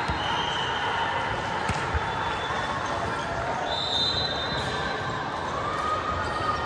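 Sports-hall ambience with echoing chatter of players and spectators, a few sharp thuds of balls hitting the hardwood floor, and a couple of brief high squeaks.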